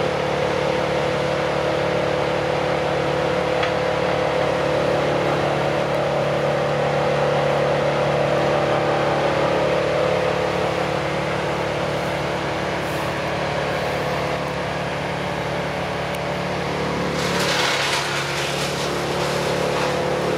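Diesel engines of a Cat excavator and a Cat compact track loader running steadily at work. About three seconds before the end the sound shifts and a hiss joins in.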